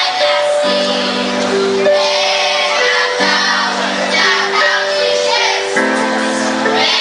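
Children's choir singing a Christmas song medley to electronic keyboard accompaniment, the keyboard holding chords that change every second or two.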